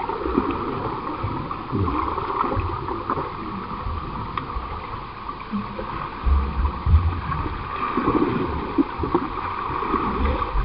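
Swimming-pool water churning and gurgling around swimmers, muffled, with irregular low thumps from strokes and kicks, the loudest a little past halfway.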